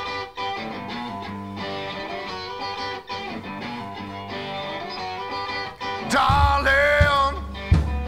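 Rock song's guitar intro; about six seconds in it gets much louder as a heavy bass and the rest of the band come in.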